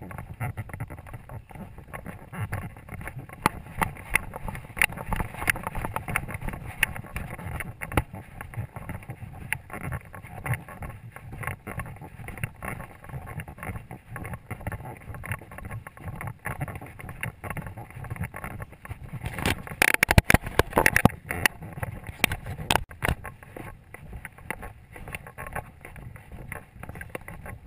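Wind buffeting a worn camera's microphone while the wearer marches on a dirt track, with an irregular run of knocks and rattles from footsteps and gear. A louder flurry of rattling comes about twenty seconds in.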